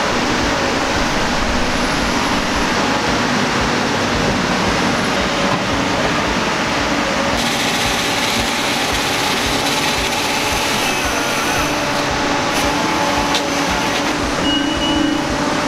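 Diesel engine of a log loader running steadily while it handles logs, with a slasher saw cutting through a log from about seven to twelve seconds in.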